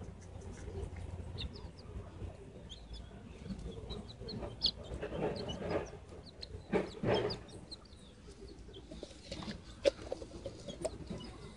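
Wild chickens clucking softly and making short high chirps while pecking rice from a hand, with a louder run of clucks midway and one sharp click near the end.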